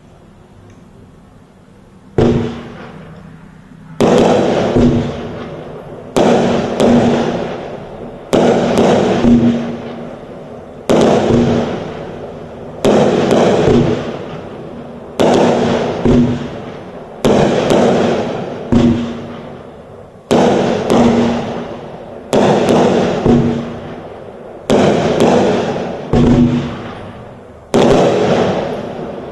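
Fireworks going off: a faint hiss for about two seconds, then a string of about fifteen loud bangs, one every second or two, each dying away over a second or so.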